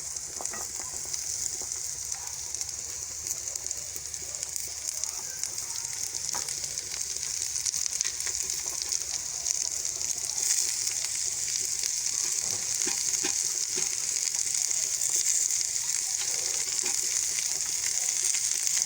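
Chopped beetroot and onions sizzling in hot oil in a pan, with light clicks of a spoon stirring. The sizzle grows louder about halfway through.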